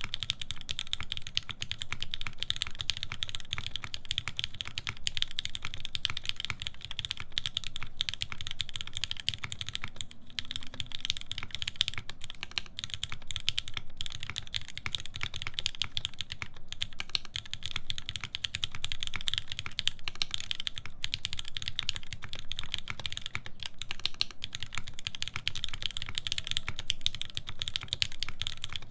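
Continuous fast typing on a mechanical keyboard with lubed linear Cherry MX Black switches in an aluminium plate and GMK keycaps, a steady stream of keystrokes with a few brief pauses.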